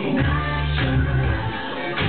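Dance music with a singing voice and a strong, moving bass line.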